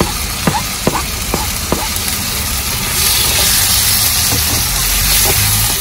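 Chopped tomatoes frying in a hot wok with a steady sizzle. A spatula taps and scrapes about twice a second during the first two seconds. The sizzle grows louder about three seconds in as the tomatoes are stirred through the oil.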